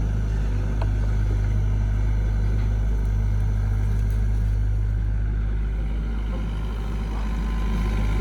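Heavy construction vehicle's diesel engine running steadily, a constant low rumble.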